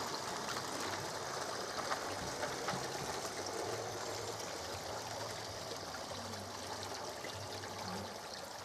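Running water from a garden pond's water feature, trickling steadily, with a faint low hum beneath it.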